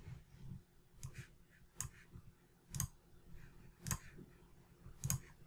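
Faint computer mouse clicks, about one a second, made while selecting items in a software dialog.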